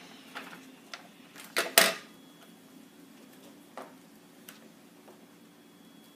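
Small handling noises of toy figures and paper on a tabletop: a few scattered light clicks and taps, with one louder rustling knock a little under two seconds in.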